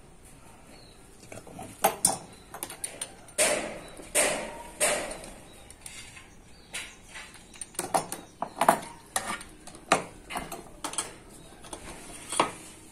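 Small steel parts clinking and scraping as electric-planer blades, a steel ruler and hand tools are handled on a wooden workbench during a blade change: scattered sharp clinks, with a few short scrapes about three to five seconds in.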